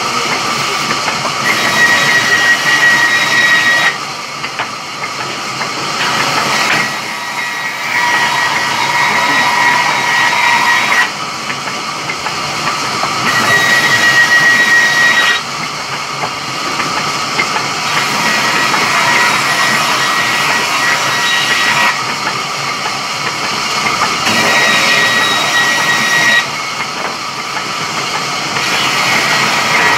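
A sawmill saw cutting through wood, a loud hissing rasp with a high whine that comes and goes. Its sound shifts abruptly every few seconds.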